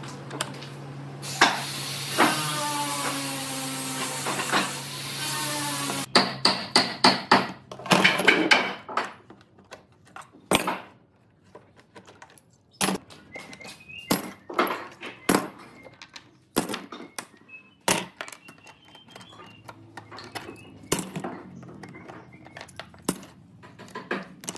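Steel C-clamps and quick-release bar clamps being worked on a laminated bent-wood form, giving irregular clanks, clicks and knocks of metal clamps against wood, thickest a few seconds in and sparser later. Before that comes a few seconds of hiss with a rising squeak.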